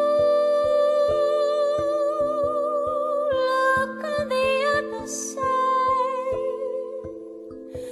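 Background music: long, wavering melody notes held over low sustained tones, with a soft steady pulse. It gets quieter near the end.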